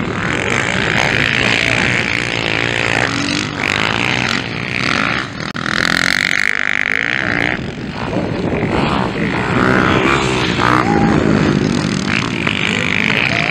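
Motocross dirt bike engines revving hard, the pitch rising and falling as riders accelerate and back off on the track, with a brief drop in loudness about five seconds in.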